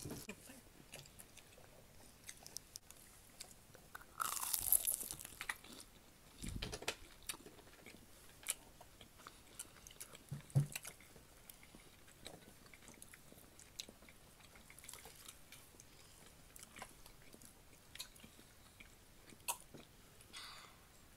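People chewing and biting into breaded chicken nuggets, with soft crunches and scattered small clicks and knocks. A short hissing noise comes about four seconds in and a dull thump about ten seconds in.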